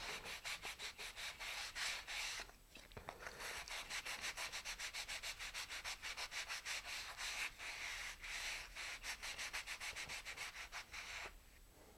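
Sandpaper on a sanding block rubbed quickly back and forth over a thin balsa-wood tail fin, about five short scraping strokes a second, with a brief pause about two and a half seconds in; the strokes stop shortly before the end. The fin is being airfoiled, sanded down toward a thin knife edge.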